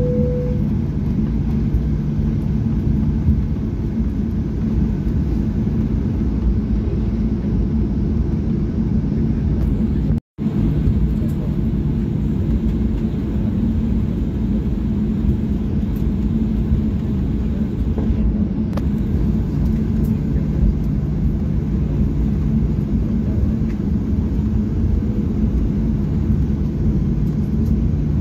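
Cabin noise of a Boeing 737-800 taxiing, its CFM56-7B engines at low power: a steady low hum and rumble. The sound cuts out for a split second about ten seconds in.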